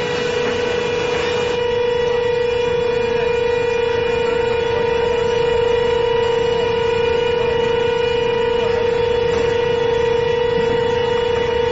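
Intermediate-frequency induction melting furnace whining at one steady pitch with its overtones as the coil heats a charge of metal.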